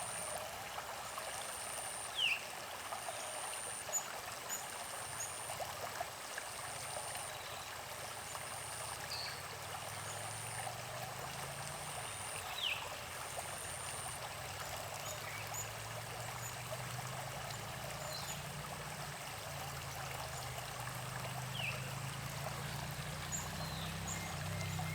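Creek water running and trickling steadily. Short bird calls come a few times over it, and a high, even note repeats about once a second through the first half.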